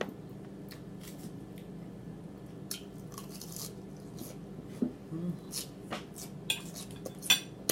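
Close-up mouth sounds of a person eating smothered chicken: chewing and wet lip-smacking, heard as scattered short clicks that come more often in the last couple of seconds, with a brief hummed "mm" about five seconds in.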